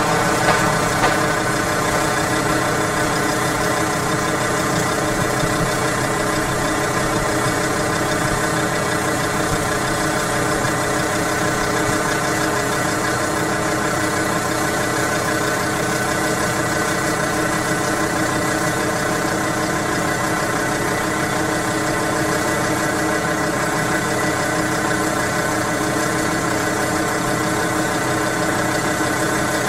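SUV engine idling steadily close by, an even, unchanging hum.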